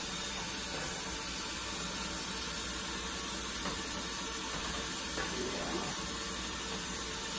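Gravy simmering in a hot pan, giving a steady hiss of steam and bubbling as it is stirred with a spatula.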